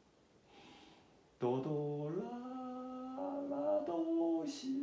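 A man singing a slow melody in long held notes, sliding up into each new pitch while sight-singing the tune's note names. There is a soft breath before the singing starts about a second and a half in, and a quick breath near the end.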